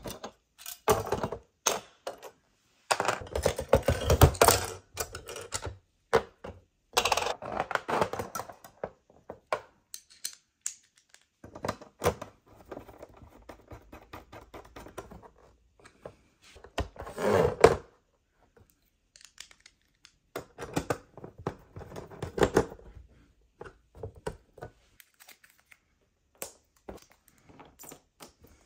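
Metal clicks, knocks and rattles from a Samsung Slim Fit wall-mount plate and its wire bracket as they are handled and screwed onto the back of a TV with a screwdriver. The sound comes in bursts of dense clicking a few seconds long, with quieter gaps between them.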